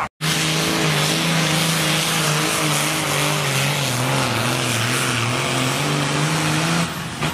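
Pulling tractor's diesel engine running loud and steady, its pitch holding with a slight waver rather than revving up or down, until it changes near the end.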